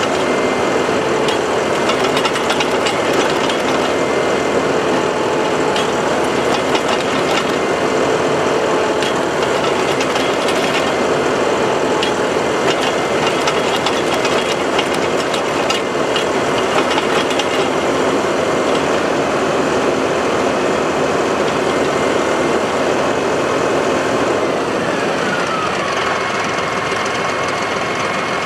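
Compact tractor's engine running a PTO-driven three-point post hole auger boring into clay, a steady mechanical drone with frequent clicks and knocks from the driveline and digging. Near the end a high whine drops in pitch as the auger is raised out of the hole.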